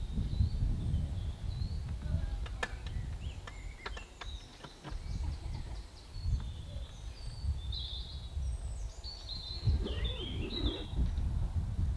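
Wind rumbling and buffeting on the microphone, with woodland birds chirping and calling above it. A few faint sharp clicks come about three to five seconds in.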